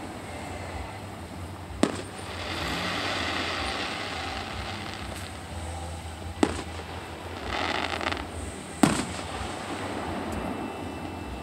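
Distant aerial firework shells bursting: three sharp booms a few seconds apart, with spells of hiss between them.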